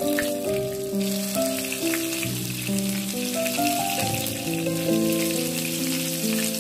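Corn fritter batter sizzling as it deep-fries in hot oil in a shallow pan, the sizzle getting louder about a second in, over background music with a slow melody of held notes.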